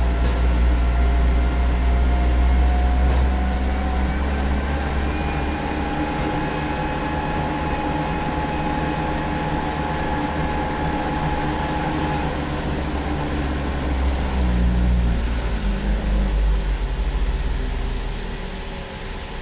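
Heavy engine running steadily with a deep low rumble and faint whining tones, the whine fading partway through and the rumble easing near the end.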